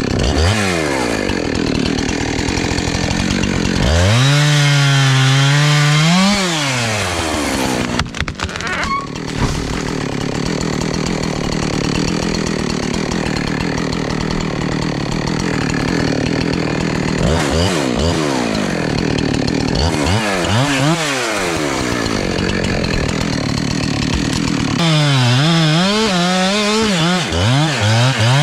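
Gas chainsaw running and cutting into a tree trunk. Its engine pitch rises and falls several times as the throttle is opened and eased, with long stretches of steady, loaded cutting in between.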